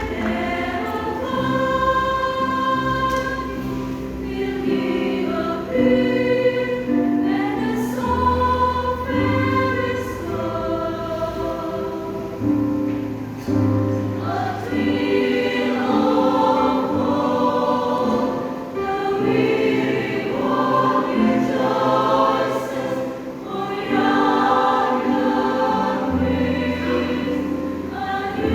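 Church choir singing a gospel piece in several parts, moving from one held chord to the next.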